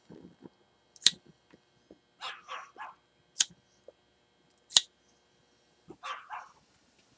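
A pocket lighter struck three times with sharp clicks, about a second in, around three and a half seconds and near five seconds, while a clay pipe is being lit. Between the strikes a dog barks: a quick run of three barks, then two more near the end.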